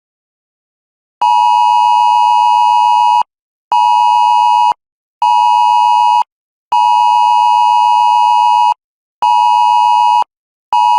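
Wireless Emergency Alert attention signal: a loud, steady two-tone alarm near 1 kHz, sounding in the pattern long, short, short (about two seconds, then one, then one, with half-second gaps), repeated. It is the tone of the nationwide test alert.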